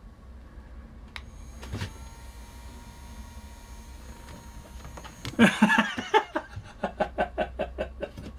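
A toy gatling-gun bubble maker's small electric motor clicks on a little over a second in and then whirs steadily with a faint whine as it blows a big bubble. About five seconds in there is a loud sudden burst of sound, followed near the end by a quick run of short sharp knocks and taps.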